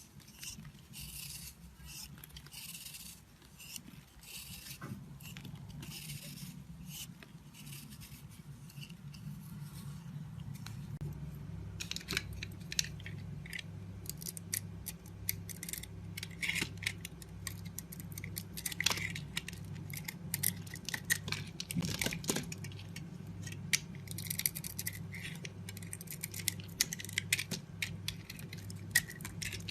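A blade cutting into soap: repeated scraping strokes about once a second, then from about twelve seconds in, many sharp, crisp clicks and cracks as the soap is cut, over a steady low hum.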